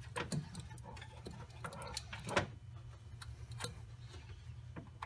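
Irregular light metallic clicks and taps as a hose-clamp tool is worked against a spring hose clamp on the water pump's coolant hose, trying to get a grip on it. A steady low hum runs underneath.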